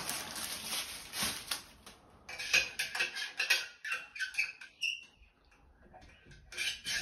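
Light clicking and scraping of a sink's pop-up drain lift rod being handled and fed down through the faucet body, with a short lull about five seconds in.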